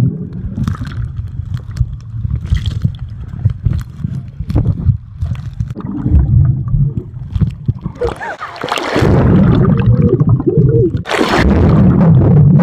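Pool water heard through a microphone held underwater: muffled sloshing and gurgling over a low rumble, with a loud rush of bubbles near the end.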